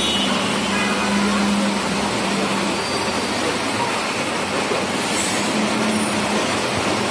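Steady, even running noise of a train on rails.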